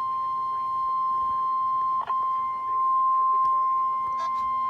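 NOAA Weather Radio warning alarm tone: one steady, piercing 1050 Hz tone heard through a radio receiver, breaking up for an instant about two seconds in. It is the attention signal announcing a severe thunderstorm warning.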